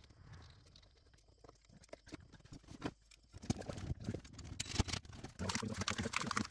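Hands working on a metal electrical box and a thick rubber-jacketed cable: scattered small clicks and rustles, turning busier and louder from about halfway with dense handling noise.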